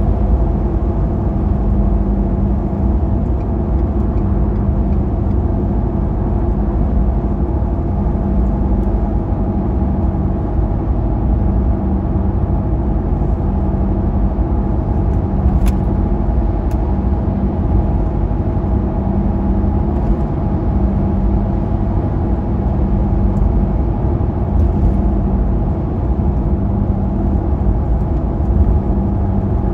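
Car driving at highway speed: steady tyre and engine drone with a low hum, heard from inside the cabin, and a single light click about halfway through.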